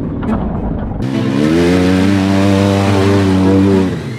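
Engine of a 6x6 mini truck running, with a cut about a second in. The engine note then rises in pitch and holds steady at higher revs before dropping away near the end.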